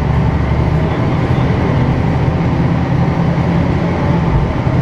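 City bus's diesel engine and drivetrain running steadily as the bus drives along, with road noise, heard inside the rear of the passenger cabin.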